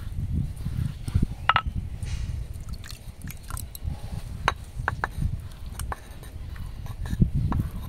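Fingers scraping and gathering wet ground cumin paste off a stone grinding slab and pressing it into a clay bowl: uneven soft scraping and squishing with scattered small clicks.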